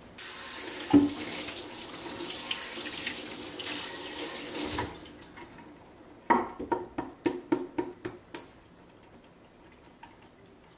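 Kitchen tap running into a metal sink for about five seconds, with one sharp knock about a second in. After the water stops, a quick run of about ten clattering knocks.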